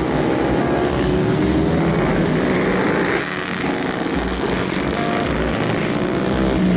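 Engines of several 125cc/150cc racing motorcycles buzzing together at high revs as a pack passes through a corner, their pitch rising and falling.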